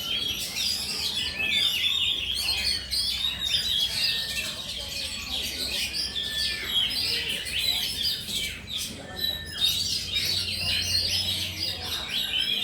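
Oriental magpie-robins (kacer) singing, several birds at once, in a dense unbroken run of rapid chirps, trills and short whistles.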